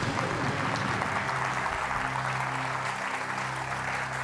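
Studio audience applauding steadily, with a low sustained music chord coming in underneath about halfway through.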